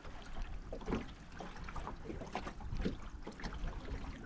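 Water lapping against the hull of a small aluminium boat, over a steady low rumble, with a few faint scattered clicks and knocks.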